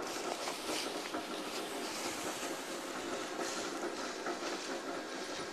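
A snowboard sliding and scraping over packed snow, a steady rough noise with small rattles.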